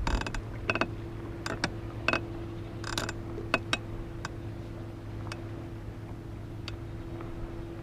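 Scattered light clicks and knocks, most of them in the first few seconds, over a steady low hum with a faint steady tone.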